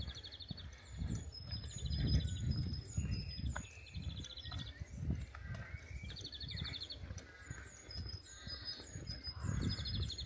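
Small birds calling and singing, with rapid runs of short high notes repeated throughout. Underneath are the low, irregular thuds of a walker's footsteps.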